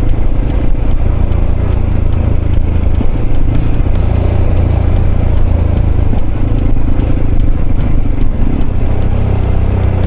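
Mondial RX3i Evo motorcycle's single-cylinder engine running steadily at low road speed on a rough dirt track, with clattering from the bumpy surface.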